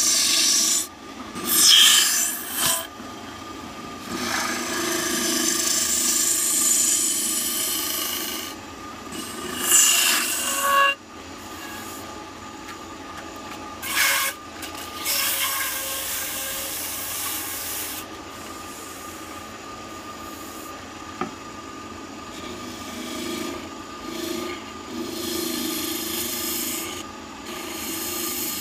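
Wood lathe running with a steady hum while a long-handled gouge cuts inside a spinning wooden bowl, in hissing, scraping bursts as shavings come off. About a third of the way in, sandpaper held against the turning bowl gives a rubbing sound, then the gouge cuts again.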